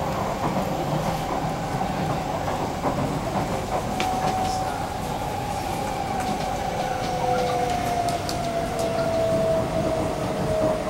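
Inside a C151B electric multiple unit train on the move: a steady rumble of wheels on track with a few rail clicks, and from about four seconds in, the IGBT-VVVF traction motor whine falling slowly in pitch.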